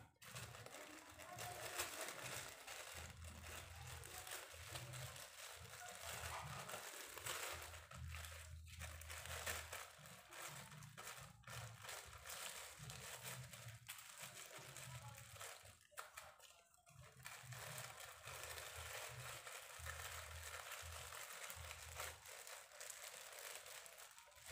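Clear plastic bag of bait mix faintly crinkling and rustling as hands push pandan leaf pieces into it and twist its top shut.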